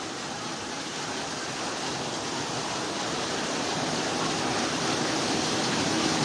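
Muddy floodwater rushing as a torrent down a street in a flash flood, a steady roar of water that grows gradually louder.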